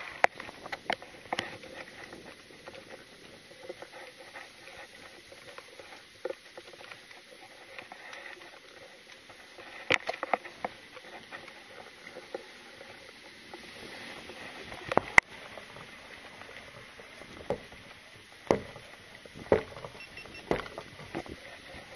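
Handling noise from a carried camera: scattered clicks, taps and knocks as it jostles against its mount and gear, with a few louder knocks in the middle and near the end.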